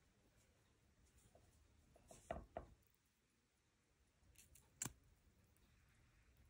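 A few faint clicks, then a single sharp snap near the end as a blanched green bean is broken between the fingers; the clean snap marks the bean as cooked crisp-tender.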